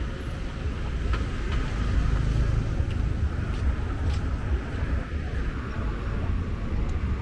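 Road traffic on a busy seafront street: a steady low rumble of passing engines.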